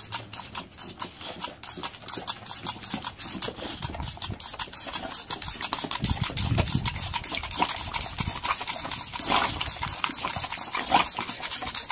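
Boxer dog snapping at a stream of water from a squirt toy: a fast run of wet snaps and splatters, several a second, over the hiss of the spray.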